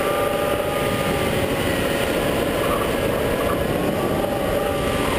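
Supercharged Chevrolet Corvette C6 V8 running steadily under way, heard through a car-mounted microphone buried in heavy wind and road rumble. The engine note holds nearly level throughout.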